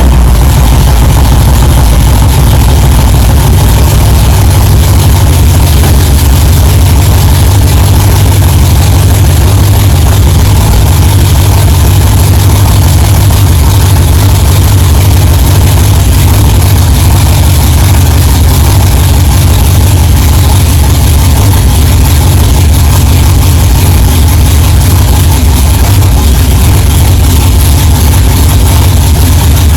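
1964 Chevelle's engine idling steadily, a loud, even low rumble through its exhaust.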